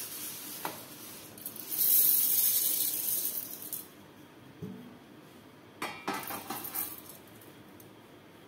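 Roasted sago pearls (sabudana) poured from a steel plate into a steel mixer-grinder jar, a hissing rattle of many small grains lasting about two seconds, followed by a few clinks and knocks of the steel jar and plate.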